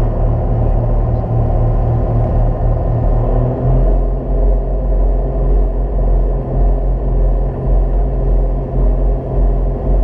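1,000-horsepower Twister speedboat's engine running at speed, a loud low rumble with the rush of wind and water; the low engine note shifts about four seconds in.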